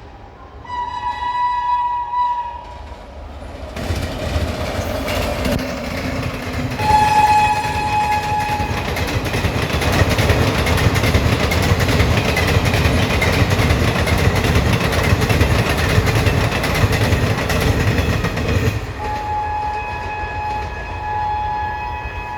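WAP-7 electric locomotive's horn blowing in blasts as the train passes: a two-note horn blast near the start, then the loud rush and wheel clatter of the train going by, with another short horn blast about seven seconds in. The horn sounds again, steadily, from about nineteen seconds on.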